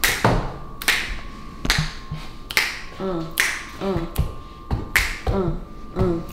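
A hip-hop beat playing: sharp snap or clap hits about every 0.8 s, joined about three seconds in by a short sliding melodic phrase that repeats between the hits.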